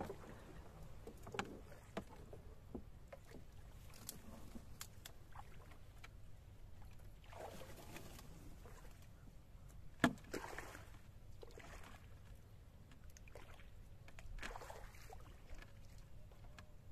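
Wooden boat being poled through shallow, weedy water: soft swishes of water and plants along the hull, with scattered knocks of the bamboo pole against the wood, the sharpest about ten seconds in.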